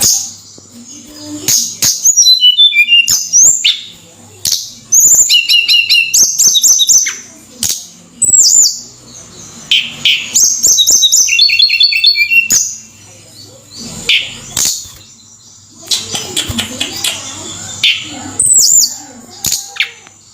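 A tledekan gunung songbird singing loudly in rapid phrases of high chirps and falling trills, each phrase lasting about a second or two with short pauses between.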